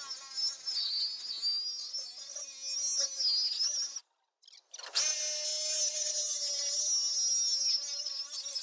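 Power drill driving a hole saw, its motor whining steadily. It stops about four seconds in, then starts again a second later with a quick rise in pitch as it spins up.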